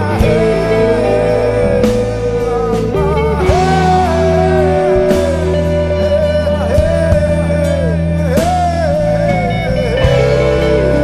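Background music: an instrumental passage of a rock song, a gliding lead guitar melody over steady bass notes.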